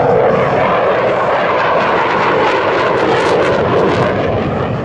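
Jet noise from a KAI T-50 Golden Eagle's single F404 afterburning turbofan as the jet banks past and turns away: a steady, loud rushing noise that eases slightly near the end.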